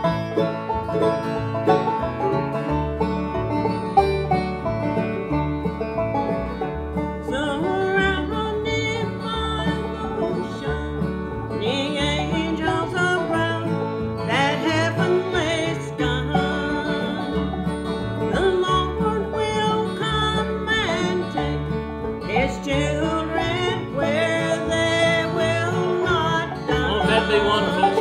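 Live acoustic bluegrass gospel band playing: rolling banjo, strummed acoustic guitars, mandolin and plucked upright bass at a steady beat. Singing joins in about seven seconds in.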